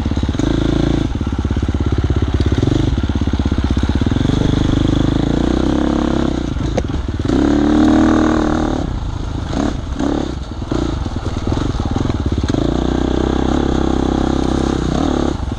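Dirt bike engine running while riding a trail, pulsing at low revs, then revving up sharply about halfway through before easing off. A few sharp knocks follow as the revs drop.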